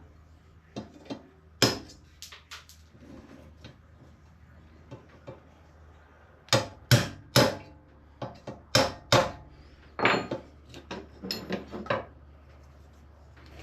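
A series of irregular sharp knocks and clanks, like hammer blows, with a run of three strong strikes about half a second apart midway and more near the end, over a faint steady low hum.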